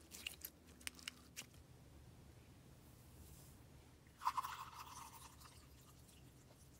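Stretched slime giving a few faint sticky clicks in the first second or so. About four seconds in, a short splashing rush as fruit drink is poured from two bottles into a bowl of dry powder.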